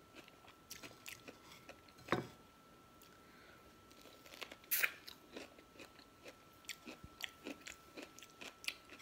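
Sugar-dipped cucumber being bitten and chewed: a run of small crisp crunches, with two louder crunches about two seconds and five seconds in.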